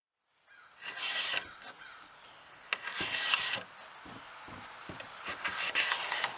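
Plastic scraper dragged across a painted wooden tabletop softened with methylene chloride stripper, scraping up the wrinkled paint sludge in three strokes: about a second in, around three seconds and around five and a half seconds.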